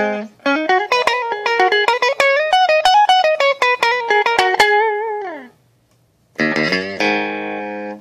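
Fender Japan '69 reissue Stratocaster electric guitar playing a fast single-note lead line with string bends, ending in a downward pitch slide about five seconds in. After a short gap, a chord is struck and left ringing.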